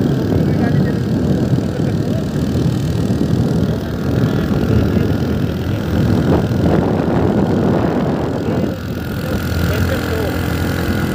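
Motor vehicle running steadily on the move, with wind noise on the microphone.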